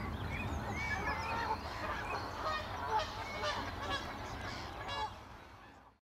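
Wetland birds calling over each other, a mix of short chirps and gliding whistled calls, fading out over the last second.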